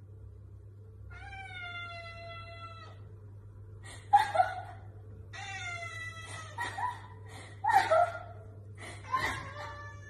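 A tabby cat meowing again and again: long, drawn-out calls with short gaps between them. The two calls about four and eight seconds in are sharper and louder than the rest.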